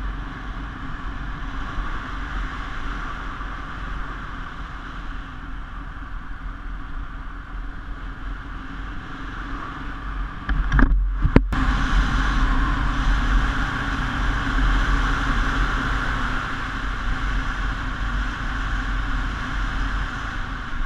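KTM 690 Enduro R's single-cylinder engine droning steadily at road speed, heard from a camera on the bike with heavy wind rumble on the microphone. About eleven seconds in the sound cuts out for a moment and comes back louder.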